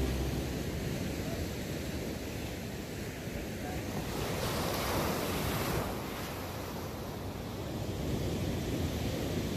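Ocean surf: waves breaking and washing up the sand in a steady rush, swelling louder about four and a half seconds in and again near the end.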